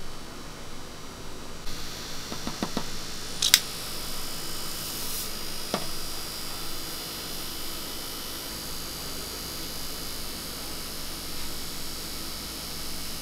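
Cotton candy machine running with a steady whir and hiss as its spinner head throws out sugar floss. A few sharp clicks, the loudest about three and a half seconds in.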